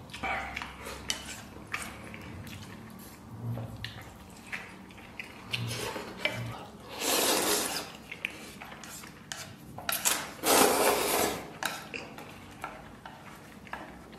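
Person eating instant noodles: wooden chopsticks clicking and scraping against a frying pan, chewing, and two long, loud slurps of noodles, the second the loudest.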